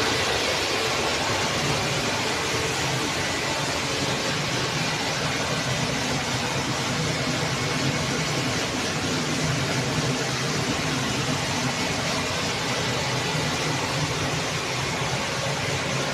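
Industrial steam boiler plant running: a steady, even rush of noise with a low machine hum underneath, unbroken throughout.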